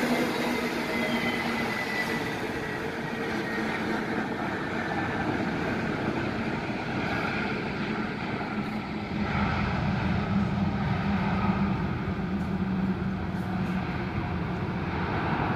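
Airbus A321neo's CFM LEAP-1A jet engines heard across the airfield as the airliner rolls out on the runway after landing: a steady jet rumble with a faint whine, easing at first and swelling a little about ten seconds in.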